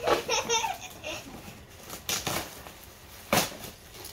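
A young child's brief high-pitched exclamation, then two short crinkling rustles, about two and three and a half seconds in, from a foil piñata being handled.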